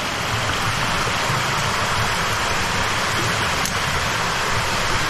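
Steady rush of a mountain stream's water, with a single faint click about three and a half seconds in.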